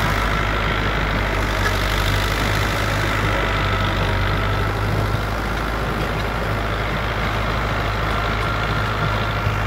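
Farm tractor's diesel engine running steadily while it pulls a rotary tiller through dry soil: a constant low drone with no change in speed.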